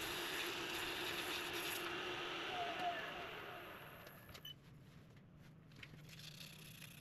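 Wood lathe spinning a purpleheart pen blank while a strip of abrasive is held against it, giving a steady hiss of abrasion over the motor's hum. About three to four seconds in the sound winds down and goes quiet, leaving a faint hum and a few light clicks.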